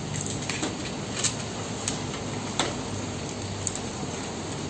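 Plastic packaging being snipped with scissors and pulled open, giving about half a dozen short, sharp crackles and snips over a steady low background hum.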